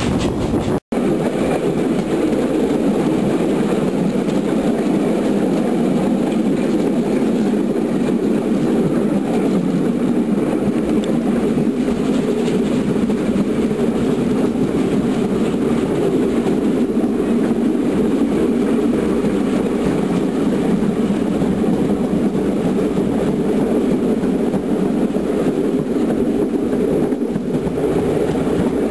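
A steam-hauled train running, heard from on board: a steady rumble of the moving train, with a brief break in the sound about a second in.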